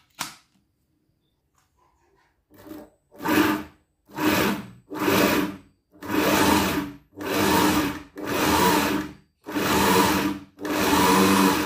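Sewing-machine motor driving a small cutting disc through a thin belt, run in about nine short bursts by pressing its foot pedal, each burst swelling and dying away, the later ones longer. A plug clicks into a power strip at the start.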